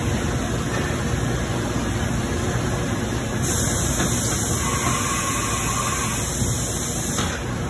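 Haas VF-2SS CNC vertical milling machine running with coolant spraying inside the enclosure: a steady machine noise. A brighter hiss comes in about three and a half seconds in and cuts off about seven seconds in.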